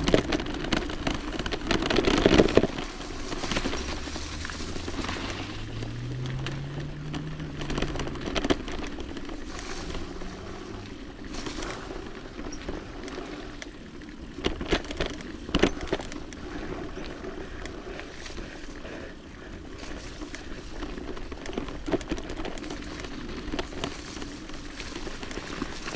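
Mountain e-bike riding down a very muddy trail: tyres rolling and slithering through mud, with the bike rattling and knocking sharply over bumps every few seconds. A low hum climbs in pitch for a few seconds partway through.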